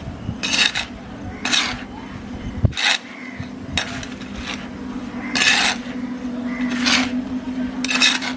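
A metal hand trowel scraping and chopping through a heap of garden soil and compost on a concrete floor, mixing a potting mix in quick strokes about once a second. A faint steady hum runs underneath.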